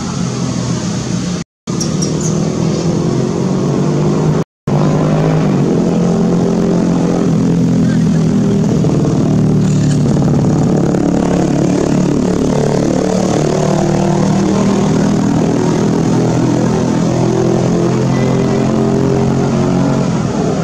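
A motor vehicle's engine running steadily, with a wavering hum. It cuts out to silence twice, briefly, in the first few seconds.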